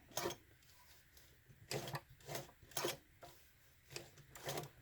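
A Singer 237 sewing machine is being turned by hand at the handwheel, one stitch at a time through marine vinyl. It makes a string of separate short clacks, unevenly spaced about half a second to a second apart.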